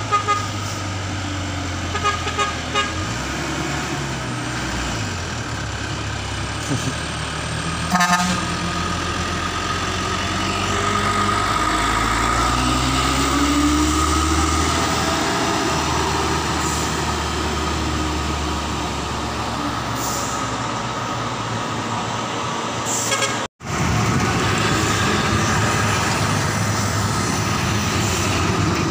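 Heavy diesel cargo trucks labouring up a steep climb, their engines running under load with a slowly rising note partway through. Short horn toots near the start and about eight seconds in. The sound cuts out for an instant about two-thirds of the way through, then another truck's engine runs on.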